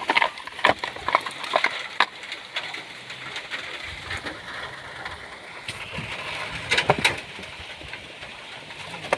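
Hand tools clicking and clinking against metal in scattered taps, with a cluster of sharper clicks about seven seconds in, as a wrench works on a starter bolt that will not loosen.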